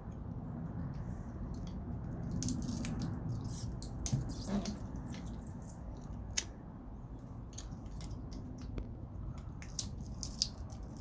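Wire cutters working on scrap copper wire, cutting and stripping its insulation: a few sharp snips and clicks scattered over a low steady rumble.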